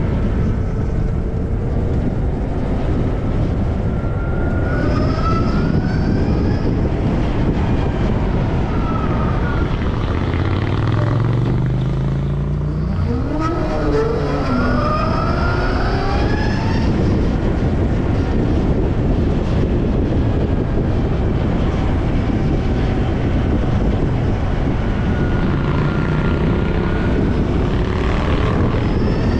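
Zero SR/S electric motorcycle on the move: a steady rush of wind over the microphone, with the electric motor's whine gliding up and down. About halfway through, the whine climbs steeply in pitch as the bike accelerates.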